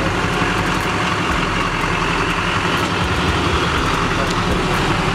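Chevrolet Duramax 6.6-litre turbo-diesel V8 idling steadily.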